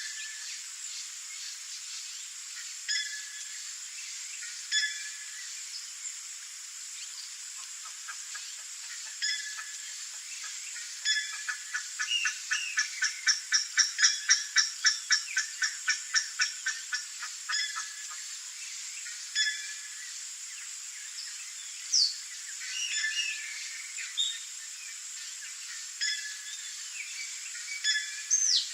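Buff-necked ibis calling: a long rhythmic series of loud, harsh notes, about three a second, that builds up, peaks and fades out over roughly ten seconds mid-way. Scattered single calls come before and after. A steady high hiss runs underneath.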